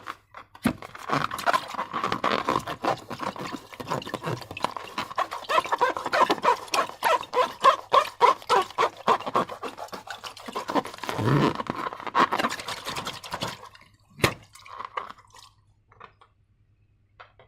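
Slime being squished and pulled by hand: a dense run of sticky, wet crackling and small pops that stops about fourteen seconds in, followed by a single sharp click.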